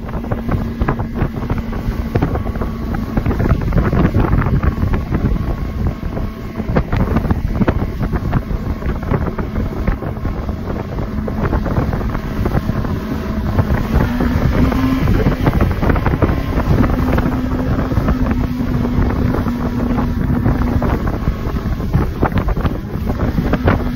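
Motorboat engine running at speed, a steady hum whose pitch rises slightly about halfway through, under heavy wind buffeting on the microphone.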